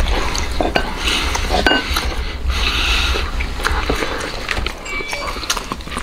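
Close-up eating sounds: tearing meat off a braised, roasted ostrich leg and chewing it, with lip-smacking and many short wet clicks.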